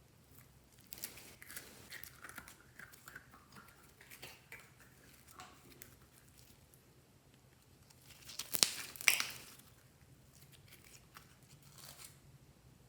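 Slime being stretched and squished by hand, with many small crackles and clicks, then two louder sharp crackling pops about two thirds of the way through.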